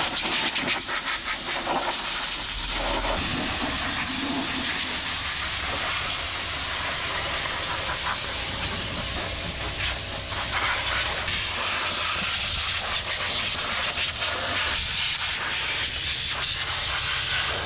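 Compressed-air blow gun hissing steadily as it blasts leaves and dirt out of an engine bay.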